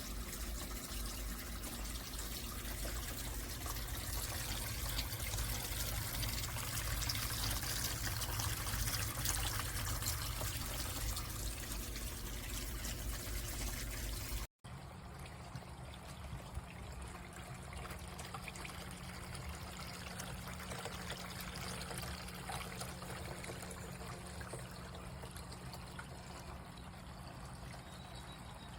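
Water trickling and splashing steadily down a Glenville pump-driven cascading water fountain. About halfway through there is an abrupt cut, after which the flow sounds quieter.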